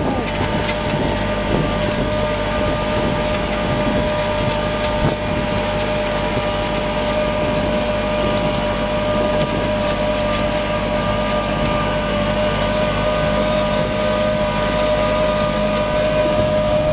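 Fendt tractor running steadily under load, pulling a Kverneland reversible plough through the soil, with a steady whine over the engine noise.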